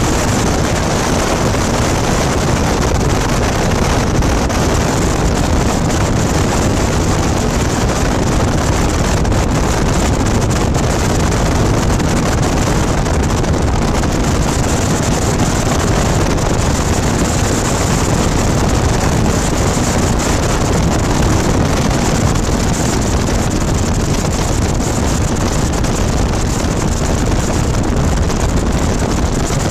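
Ultralight aircraft's engine and propeller running steadily in flight, with heavy wind noise on the microphone.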